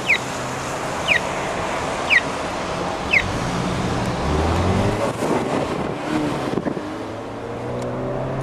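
Steady traffic noise of cars passing on a busy street, with four short falling chirps a second apart in the first few seconds, typical of a pedestrian crossing signal. Near the end a car engine rises in pitch as it accelerates.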